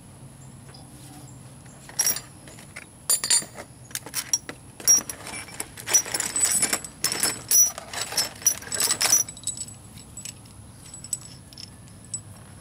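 Loose steel bolts and hardware clinking and rattling against each other in a run of sharp metallic clinks, busiest from about two seconds in until about nine seconds in.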